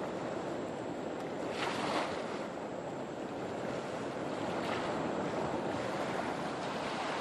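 Ocean surf: waves breaking and washing up the beach in a steady rush, with stronger surges about two seconds in and again near five seconds.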